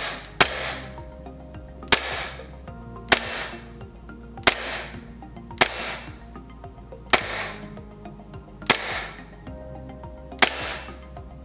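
A gas blowback Glock-style airsoft pistol with a recoil-enabled laser training barrel is dry-fired with no BBs, about eight shots roughly one every second and a half. Each shot is a sharp crack trailed by a short hiss that falls away. Background music plays underneath.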